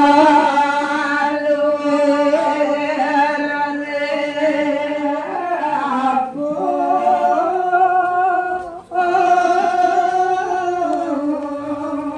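A voice chanting in long held notes that glide slowly from one pitch to the next, the devotional singing of a temple blessing ceremony; it breaks off briefly about nine seconds in and resumes.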